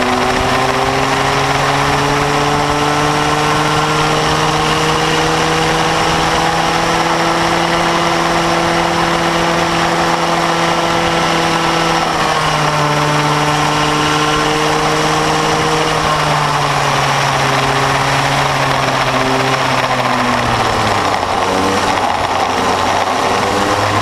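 A bambino go-kart's small two-stroke engine at racing speed. It climbs to a steady high pitch and holds it, with a brief change about halfway. Later it drops away gradually and runs lower and less evenly near the end as the kart slows.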